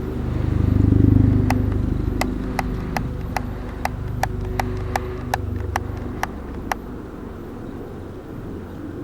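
Helicopter rotor and engine drone, loudest about a second in and then slowly fading as it moves off. Over it, a run of about a dozen sharp clicks, two to three a second, stops a little before the drone has faded.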